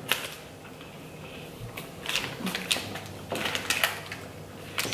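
Irregular crinkles and clicks of plastic ice-cream wrappers being handled, along with chewing of biscuit ice-cream sandwiches.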